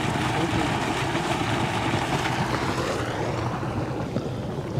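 A motor running steadily under a rushing noise, the hiss thinning out about three seconds in.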